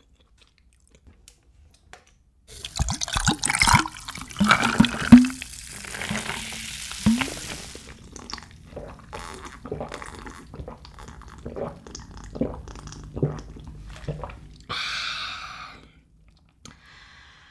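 Cola poured over ice into a glass, fizzing with clinks of ice. It is followed by gulping swallows and a short breathy exhale near the end.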